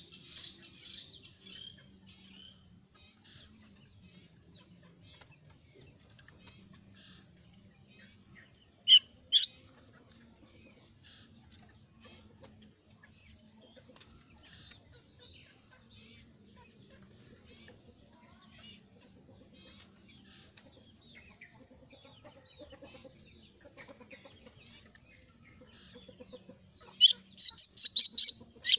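A jongkangan songbird in molt giving short, sharp chirps: two loud calls about nine seconds in and a quick run of calls near the end, with faint chips between. It is calling rather than singing in full, as a bird does while it is molting and its voice is hoarse.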